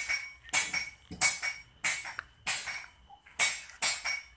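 A regular series of sharp metallic clinks, about seven in a row, each ringing briefly and dying away, roughly one every half second to second.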